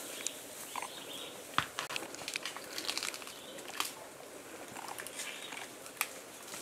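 Forest ambience: scattered sharp clicks and crackles over a steady hiss, with a louder snap about one and a half seconds in.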